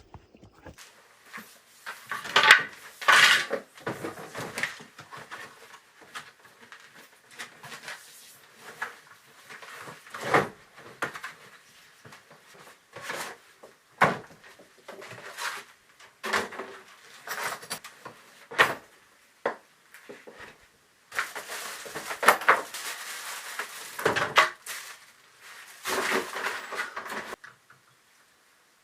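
Hard objects clattering and knocking as they are handled and set down: irregular sharp clinks and knocks, with a busier stretch of clatter a little past the middle.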